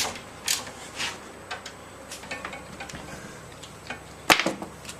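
Irregular clicks and knocks from a home-built HDMI cable test rig being tightened down on the cable, with one sharper, louder knock a little after four seconds in.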